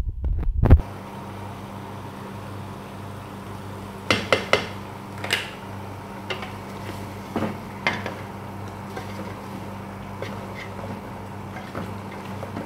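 A utensil clinking and knocking against a metal cooking pot: a cluster of sharp clinks about four to five and a half seconds in, a few more near eight seconds, and fainter taps later. A steady low hum runs underneath, after a brief low rumble at the start.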